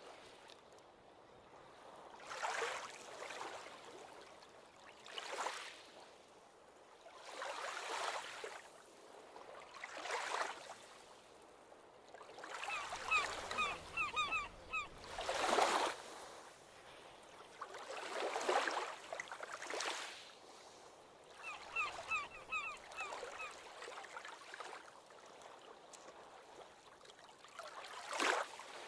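Ocean waves washing in on a beach, one swell after another every two to three seconds. Twice, about halfway through and again some eight seconds later, a bird gives a quick run of short calls.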